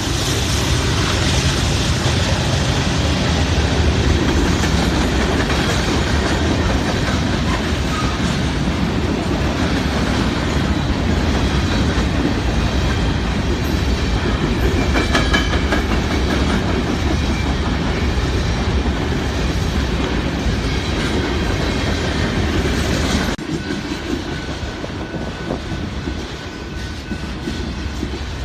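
Freight train passing close by: a steady rumble of rolling cars with wheels clacking over the rail joints. About 23 seconds in the sound suddenly drops and thins.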